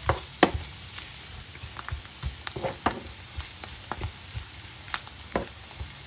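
Wooden spatula stirring sliced mushrooms and diced onions frying in oil in a nonstick pan, with irregular sharp knocks and scrapes of the spatula against the pan over a steady sizzle.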